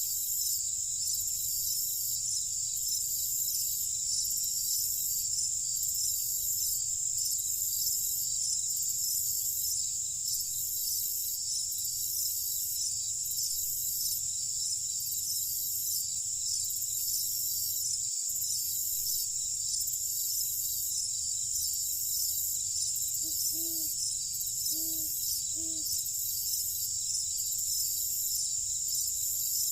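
Crickets chirring on a summer night in a steady, pulsing chorus. Near the end, three short, low animal calls sound in quick succession.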